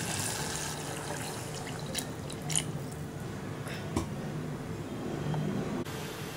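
Toor dal cooking water poured into a stainless steel pot of chopped cabbage, splashing steadily onto the vegetables, with a few light clicks.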